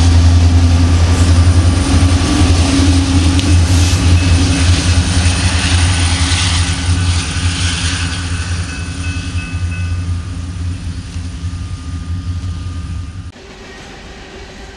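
EMD diesel locomotives at the rear of a freight train passing close by, their engines giving a deep, steady drone that slowly fades as the train moves away. About thirteen seconds in it cuts off suddenly to the quieter rolling of freight cars going past.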